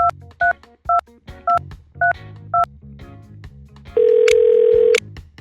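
A phone number dialed on a keypad: six quick touch-tone beeps about half a second apart, then about a second later one ring of the ringback tone, about a second long, all over soft background music.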